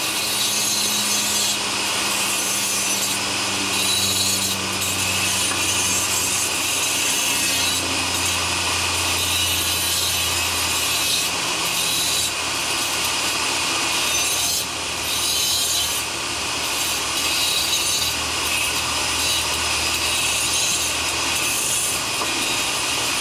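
Die grinder with a small cut-off disc cutting into hardened plaster and the steel armature beneath it: a steady, loud grinding hiss over the motor's hum, which sags slowly in pitch as the disc is pressed into the cut.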